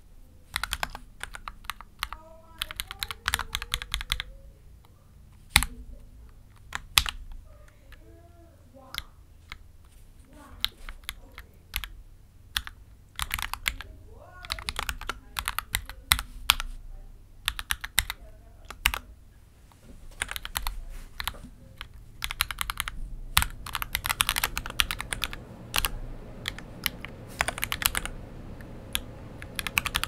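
Mechanical keyboard with Gateron Oil King v2 linear switches being typed on in spurts of rapid keystrokes with short pauses between, the typing growing denser and more continuous about two-thirds of the way in.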